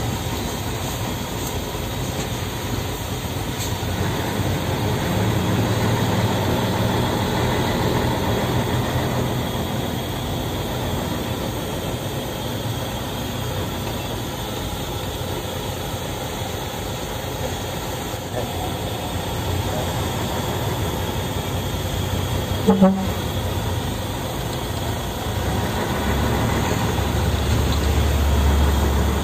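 Scania 113M 320 truck's 11-litre straight-six diesel running steadily under a heavy load, heard from inside the cab with a steady hiss over it. A short sharp click about 23 seconds in, and near the end the engine's low rumble grows much deeper and louder.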